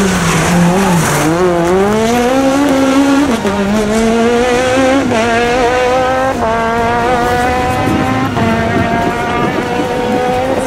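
Peugeot 106 rally car engine accelerating hard away out of a bend. The pitch climbs through the gears, with sharp drops at each upshift, several times over, as the car pulls away.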